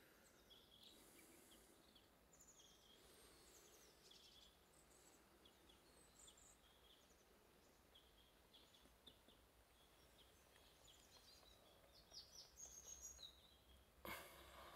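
Near silence with faint birdsong: scattered short high chirps and calls, a little busier near the end.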